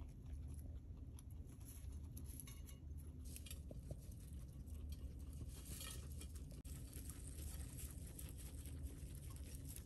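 Guinea pigs eating hay from a ceramic plate: faint, irregular crunching and crackling of dry hay stalks as they chew and pull at the pile, with small clinks against the plate.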